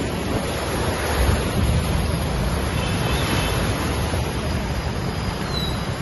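Steady rushing noise with a heavy low rumble, recorded from a moving vehicle on a flooded street: wind on the microphone mixed with water churned up as it passes.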